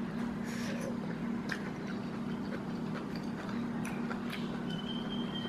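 A person chewing a mouthful of rice, with a few faint scattered clicks, over a steady low hum.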